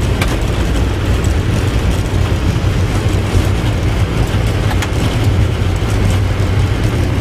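Steady low rumble and roar of a Boeing 777 during landing, heard inside the cockpit.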